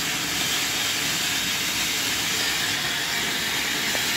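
Ground fountain firework spraying sparks with a steady, even hiss.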